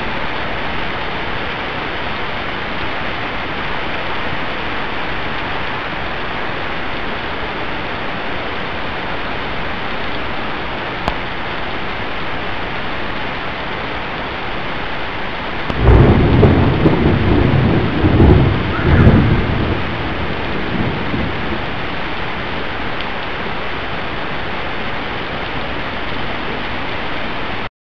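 Steady heavy rain falling on the street. About sixteen seconds in, thunder rumbles loudly for about five seconds, swelling three times before it fades back under the rain. The sound cuts off suddenly near the end.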